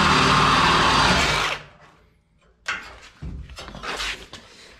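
Cordless reciprocating saw running, cutting the truck's steel frame, then cutting off suddenly about a second and a half in. Scattered light metal clanks follow.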